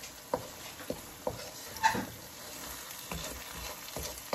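A wooden spoon stirring thick masala gravy and small aubergines in a nonstick wok, with a quiet frying sizzle and a few light, irregular knocks and scrapes of the spoon against the pan.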